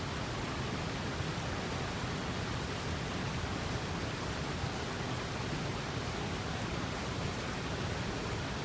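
Steady, even rushing noise like flowing water, with no rhythm and a few faint crackles.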